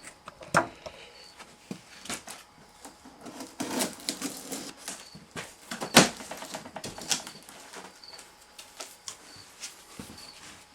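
Irregular clicks, taps and short rustles of hands handling a cardboard shipping box and its packaging, with one sharper knock about six seconds in.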